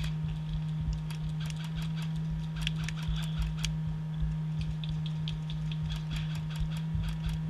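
Irregular light clicks and ticks, a few a second, over a steady low hum and a fluctuating low rumble.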